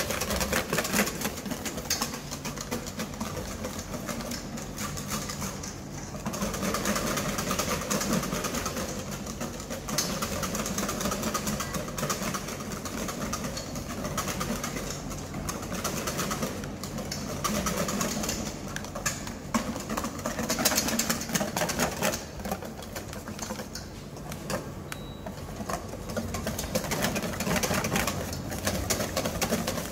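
Wire whisk beating sabayon (egg yolks, sugar and wine) in a stainless steel bowl over boiling water, a fast, steady clatter of wire against metal that eases briefly a couple of times. The whisking is kept up without stopping so the yolks don't turn lumpy while the mixture thickens.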